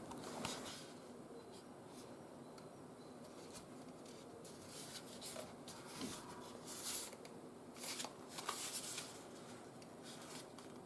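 Soft rustling and handling noises in a few short bursts, with some faint light clicks between them.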